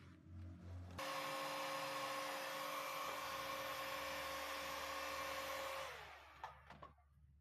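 Electric hot air gun switched on about a second in, its fan motor running with a steady whine and rush of air, then switched off near the end, the whine winding down.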